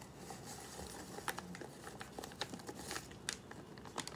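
Paper mix packet crinkling in the hands as it is emptied into a mug and handled, with irregular small crackles and a few sharper crinkles.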